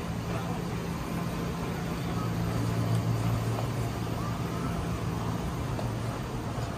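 A steady low mechanical hum, like an engine or machine running, swelling slightly a few seconds in, under faint street ambience.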